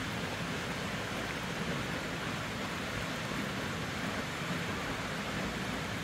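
A thin waterfall plunging into a pool, giving a steady, even rush of falling water.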